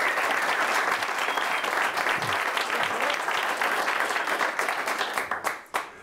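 Audience applauding, a dense patter of many hands clapping that thins out and dies away near the end with a few last claps.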